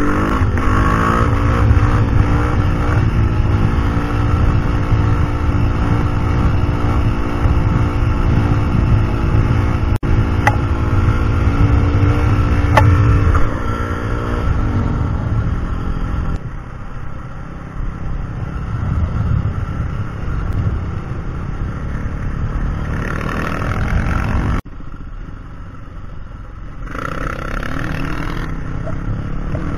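Yamaha WR450F single-cylinder four-stroke dirt bike engine running at a steady cruise, heard from on board with heavy wind rumble on the microphone. The engine note changes about halfway through and drops off suddenly near the end.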